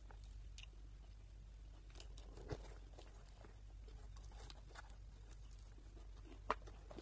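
Faint sounds of people eating fried chicken with their hands, with scattered small clicks and rustles over a low room hum. There is a sharper click about two and a half seconds in and another near the end.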